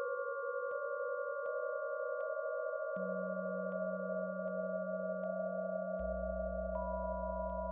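Many-voiced synthesiser drone of layered steady sine tones, the SonoGene module's sonified cell data. Faint clicks come about every three quarters of a second as voices step in or change. A low tone enters about three seconds in and a deeper one about six seconds in.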